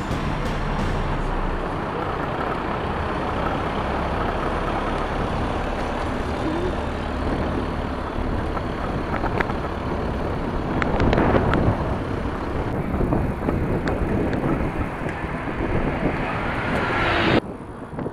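Steady rushing noise of a fat bike being ridden on city asphalt: wind buffeting the handlebar camera's microphone, mixed with tyre and traffic noise. It swells louder about two-thirds of the way through, then cuts off suddenly just before the end.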